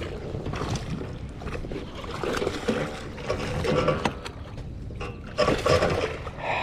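A hooked bass being brought in beside a fishing kayak: water splashing and a sharp knock on the hull a little after the middle, with a short muttered voice twice.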